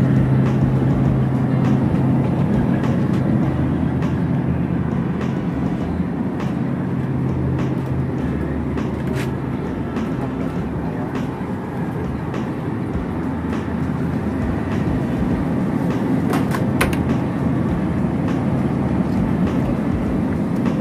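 Steady low hum of supermarket refrigerated display cases over a rumbling background noise. The hum weakens through the middle and comes back near the end.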